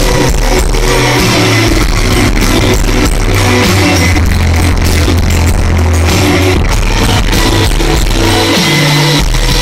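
A live band playing on stage, heard from the crowd: electric guitar over drum hits, with a heavy bass that overloads the recording.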